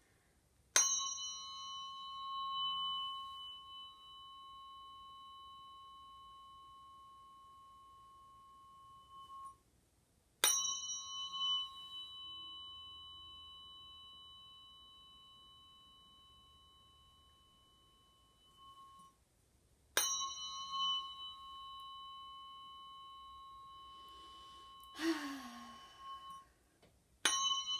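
Sound-healing tuning fork struck about every ten seconds, three times in full and a fourth time near the end. Each strike gives a bright metallic ring of several high tones that fades slowly. A short breathy sound comes between the third and fourth strikes.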